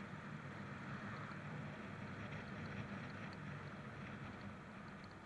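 Royal Enfield single-cylinder motorcycle engine running steadily while riding at an even speed, with wind and road noise.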